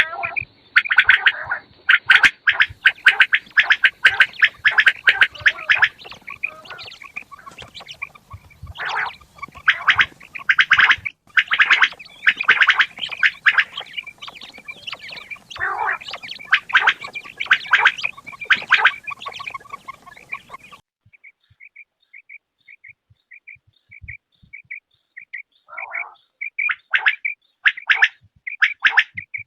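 Quails calling: a dense run of rapid, overlapping, repeated calls. About two-thirds of the way through it cuts off abruptly, leaving a thin string of short, even notes and a few louder calls near the end.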